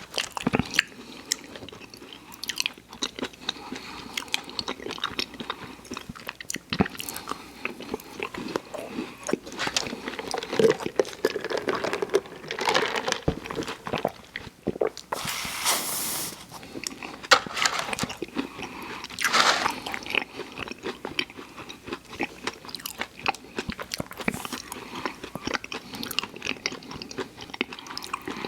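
Close-miked eating of fast food: bites and chewing with crunching and many small wet mouth clicks, and a couple of longer hissy stretches partway through.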